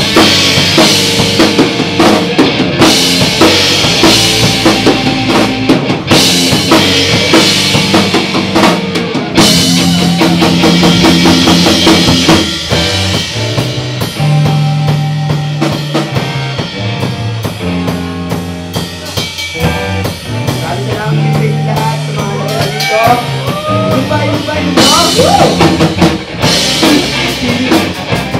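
Live rock band playing: drum kit with bass drum, snare and cymbals to the fore, over electric guitar and bass. The cymbals are loudest in the first few seconds and near the end, with a quieter stretch in the middle.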